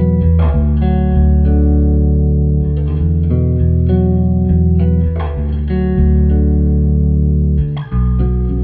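Solo electric bass playing a slow, ambient instrumental, plucked notes and chords ringing on and overlapping one another. The sound drops briefly near the end before fresh notes come in.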